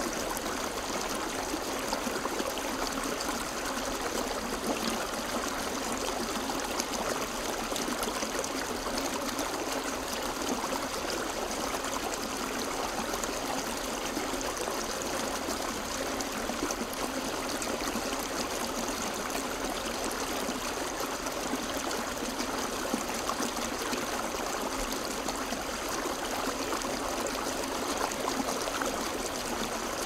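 A small rocky stream flowing and trickling over stones in a low cascade: a steady rush of running water with little bass.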